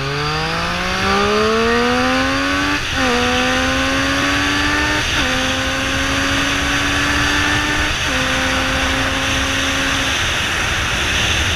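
A vehicle engine accelerating hard through the gears: its pitch climbs steadily, drops sharply at three upshifts two to three seconds apart, then fades out near the end, leaving a steady rush of wind and road noise.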